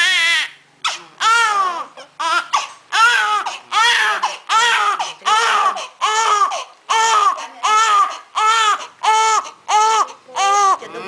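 Newborn baby crying: a steady run of short wails, each rising and falling in pitch, repeating about once or twice a second with a brief catch between them.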